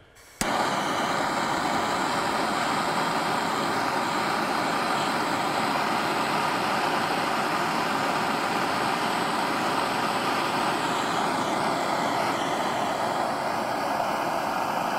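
Propane torch flame burning with a steady, loud hiss that cuts in suddenly about half a second in.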